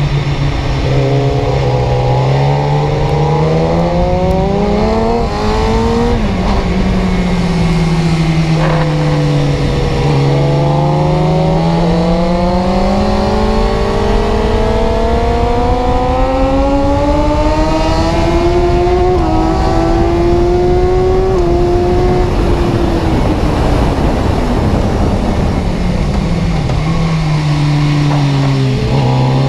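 Car engine running under way, its pitch rising and falling as it speeds up and eases off: a short climb, a drop, then a long slow climb lasting about twelve seconds, another drop, and a fresh climb near the end.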